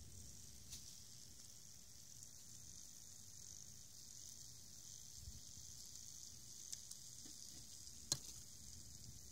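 Bacon sizzling in foil over hot barbecue coals: a steady faint hiss with a few sharp crackles, the loudest about eight seconds in.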